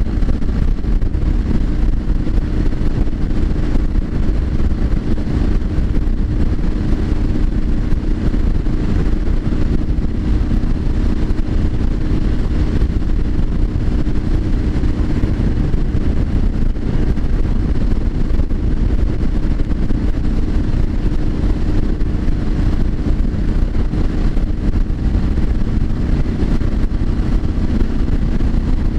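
Triumph Street Scrambler 900's parallel-twin engine running at a steady cruise, with a heavy low wind rumble on the microphone.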